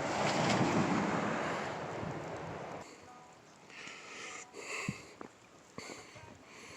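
Wind rushing across the microphone in a snowstorm. It cuts off suddenly about three seconds in, leaving a quieter stretch with a few faint knocks.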